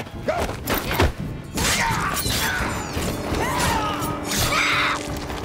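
Movie fight sound mix with music under it. A few sharp hits and thuds land in the first second, then a dense stretch of scuffling and crashing with voices crying out.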